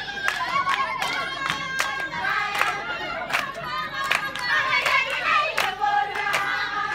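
A group of women singing together, with sharp hand claps about twice a second.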